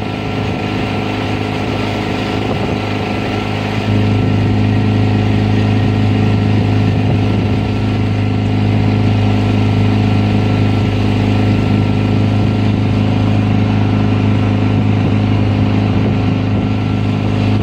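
A boat's engine running steadily at cruising speed, its hum stepping up louder about four seconds in and then holding even.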